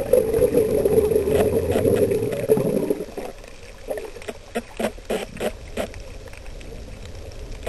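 Water noise heard underwater through a waterproof camera housing: a loud bubbling rush that stops about three seconds in, followed by a run of short gurgling pops, about two a second.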